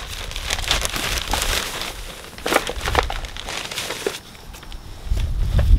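Plastic bag of potting mix crinkling and rustling as soil is scooped out by hand, with scattered crackles. A low rumble comes in near the end.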